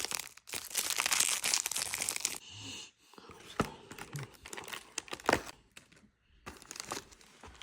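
Packaging being handled: crinkling and tearing for the first two seconds, then scattered sharp clicks and rustles, as a small door of a cardboard advent calendar is opened and a fishing lure is taken out of its wrapping.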